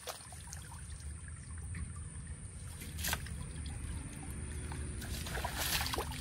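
Pond water sloshing and splashing as a bamboo-framed fishing net full of mud is worked by men wading waist-deep, with a few sharp splashes about three seconds in and again near the end, over a low steady rumble.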